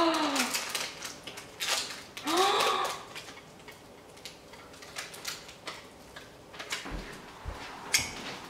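Hands pressing sticky marshmallow and puffed-rice mixture into a tray, with many small clicks and crackles. A short wordless 'ooh'-like voice sound comes at the start and another about two seconds in, and a few low thumps come near the end.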